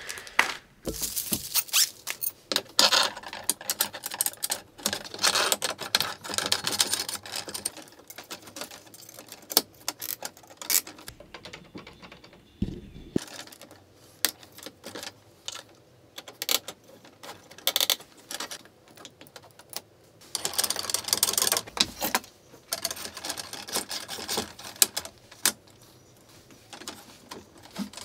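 Clicks, clatter and small rattles of screws, nuts and acrylic frame plates being handled and fastened by hand while an Anet A8 3D printer kit is assembled. The clicks come in bursts with gaps between them.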